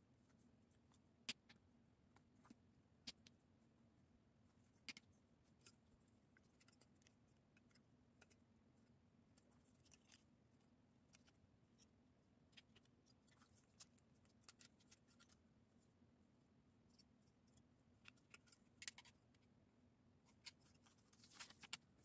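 Faint, irregular clicks and taps of plastic Lego bricks being handled and pressed together, over a faint steady low hum. Near the end a quick cluster of clicks and rustling as the pieces are set down and the paper instruction booklet is turned to the next page.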